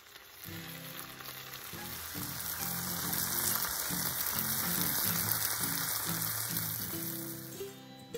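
Tofu skin, green peppers and cherry tomatoes sizzling in a hot nonstick wok as they are stir-fried with a wooden spatula; the sizzle builds, is loudest in the middle, and fades near the end. Background music plays underneath.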